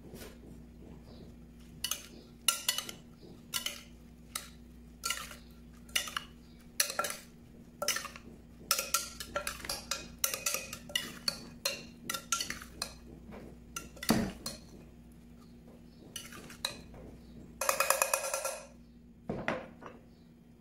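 Stainless steel spoon stirring chopped tomato, onion and chili in a glass mixing bowl, clinking and scraping against the glass at an irregular pace, with one dull knock about two-thirds of the way through and a longer scrape near the end.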